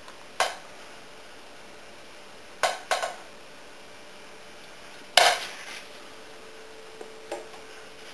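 Several sharp clatters of hard objects knocking together, the loudest about five seconds in, with a short ringing tail. A faint steady hum comes in near the end.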